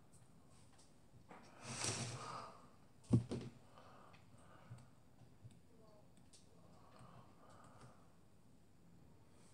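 Plastic rig box shifted across a tabletop: a brief scraping hiss about two seconds in, then a sharp double clack, followed by a few faint small clicks of tackle being handled.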